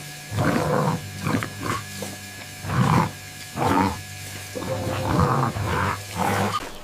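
A series of short animal vocal sounds in quick bursts, about eight of them, over a steady low background tone.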